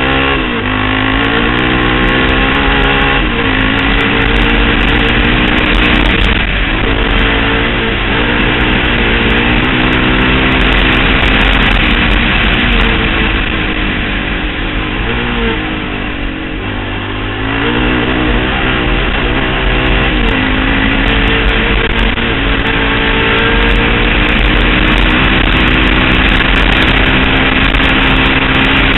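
Honda TRX700XX quad's single-cylinder engine through a Big Gun Evo-R aftermarket exhaust, revving up and down in pitch while the quad is ridden hard. It backs off the throttle briefly about six seconds in and again around sixteen to seventeen seconds in. A low rumble of wind and vibration on the camera runs under it.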